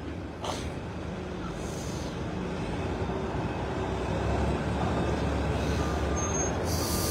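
Forklift engine running steadily under load as it moves a car on its forks, growing gradually louder, with a short hiss just before the end.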